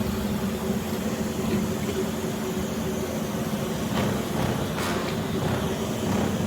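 Pressure washer running with a steady motor hum under a hiss of spray, with a few short spray hisses about four and five seconds in.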